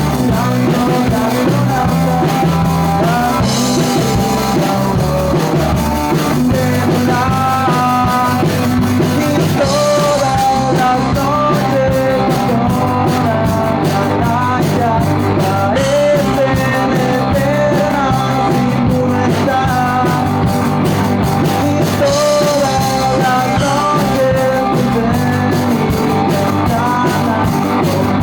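Rock song with singing over electric guitar and drum kit, playing continuously at a steady loud level.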